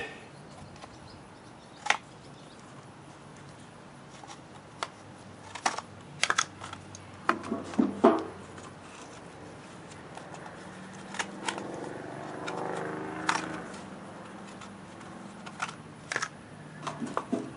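Scattered small clicks, taps and rustles of hands working with paper and containers while a paper funnel is made for pouring resin, with a longer soft rustling stretch about twelve seconds in.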